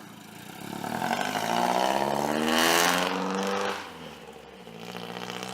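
Car with a straight-piped exhaust and no catalytic converter pulling away under acceleration. The revs climb, ease off about four seconds in, then start rising again.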